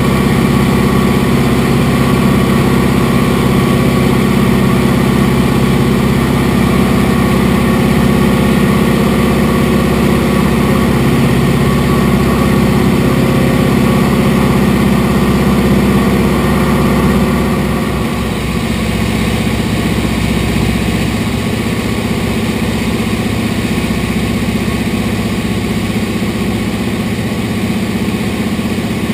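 de Havilland DHC-2 Beaver's radial engine and propeller droning steadily in flight, heard inside the cabin. About two-thirds of the way through the drone drops slightly in level and its low end thins, then holds steady.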